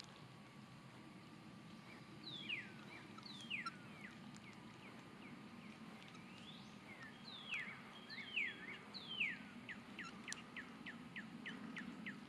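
A songbird singing faintly: a few separate down-slurred whistles, then a quick run of short down-slurred notes, about four a second, near the end.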